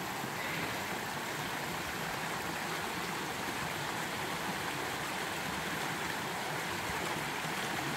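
Mountain creek running over rocks: a steady, even rush of water.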